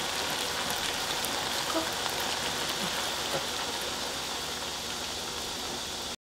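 Braised potatoes and shishito peppers sizzling in their reducing soy-and-gochujang sauce in a frying pan: a steady hiss that cuts off suddenly near the end.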